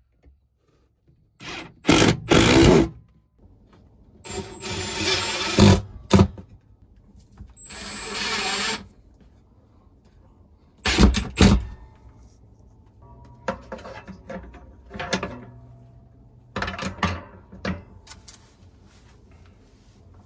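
Cordless power drill driving screws into wood in several short runs, the motor whining briefly each time, with sharp knocks between runs.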